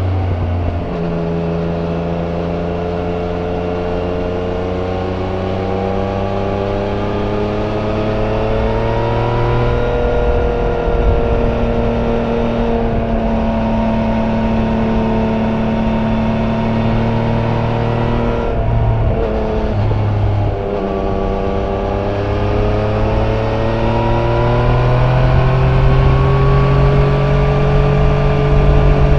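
Yamaha Niken GT's 847 cc three-cylinder engine on its stock exhaust, heard on board while riding: the revs fall at the start, climb slowly and hold, drop out briefly twice about two-thirds of the way through, as at gear changes, then climb again near the end.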